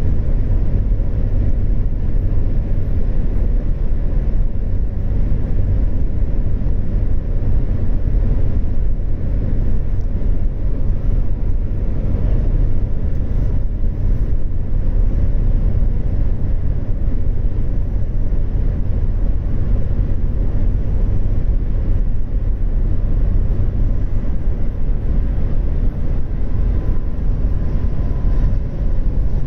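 Steady low road and wind noise inside a car's cabin, driving at highway speed.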